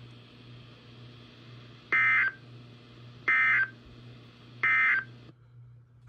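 NOAA Weather Radio receiver sounding three short bursts of SAME digital data tones, evenly spaced about a second and a half apart: the end-of-message code closing the Required Weekly Test broadcast. The receiver's faint background hiss cuts off after the third burst.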